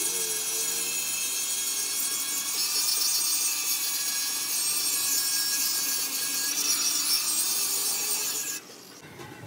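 Electric angle grinder with an abrasive disc grinding the steel centre disc of a tractor wheel rim: a steady, high-pitched hiss of abrasive on metal over the motor's whine. It stops abruptly about eight and a half seconds in.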